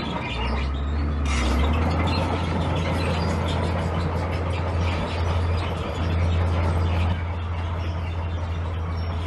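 Heavy diesel engine of a bulldozer running steadily under working load, a deep drone with metallic clattering on top. The engine note dips briefly about half a second in and picks back up, and the sound gets a little quieter about seven seconds in.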